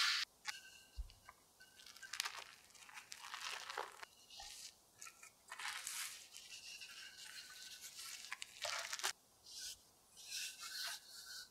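Plastic cling film crinkling and rustling in several short bursts as a sheet of tart dough is peeled off it and wound onto a wooden rolling pin.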